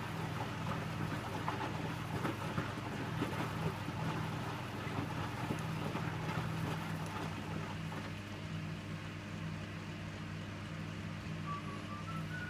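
Electrolux W455H commercial washing machine running mid-cycle on its Synthetic 40 program: a steady low motor hum with faint irregular knocks from inside the drum.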